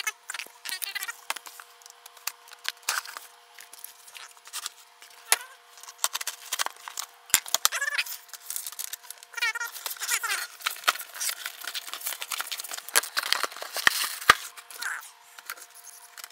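Cardboard box and packing paper being handled: irregular rustling and crinkling with sharp clicks and taps as the flaps are opened and the lens box is lifted out, plus a few short wavering squeaks.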